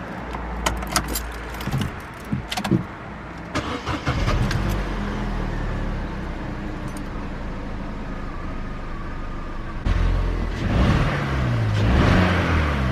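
After a few clicks, a Vauxhall Adam's petrol engine runs roughly, getting louder with its pitch shifting from about ten seconds in. The engine is misfiring from a failing ignition coil pack.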